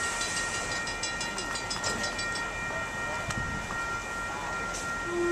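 Passenger train standing at the station platform, running with a steady high whine, and a fast ticking for the first couple of seconds.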